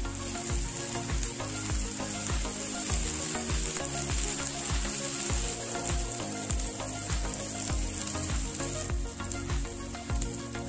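Food frying and sizzling in a hot pan, a steady hiss throughout, over background music with a steady beat.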